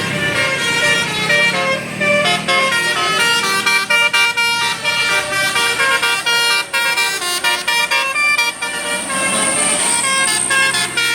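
Bus telolet 'Basuri' musical horn playing a quick melody of short notes that change pitch several times a second.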